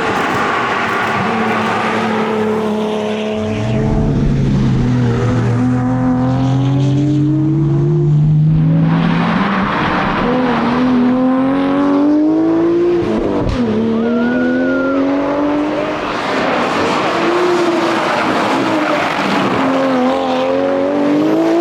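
Nissan R33 GT-R's twin-turbo straight-six running hard under load, its pitch climbing through each gear and dropping at several gear changes a few seconds apart.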